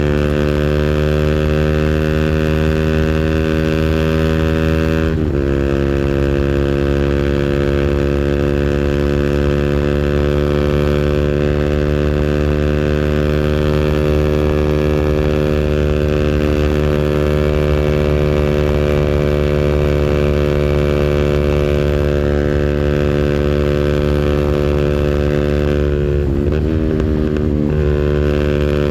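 200cc engine held at high revs on its rev limiter: a loud, steady drone, with a brief dip in pitch about five seconds in and a short wobble near the end.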